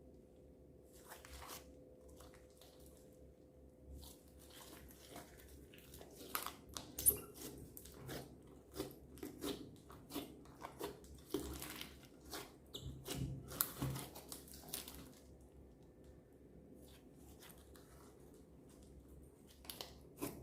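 Hands kneading and squishing a glittery slime, making sticky wet clicks, pops and crackles that come thick in the middle and thin out near the end.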